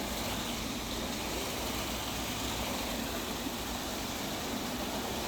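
Automatic car-wash machine running, a steady rushing noise without breaks.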